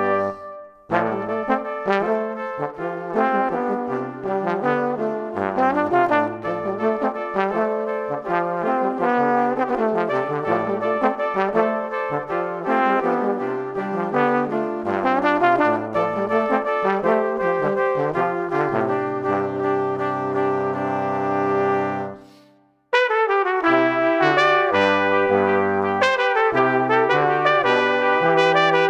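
Background music led by brass instruments, with a short break about three-quarters of the way through before it starts again.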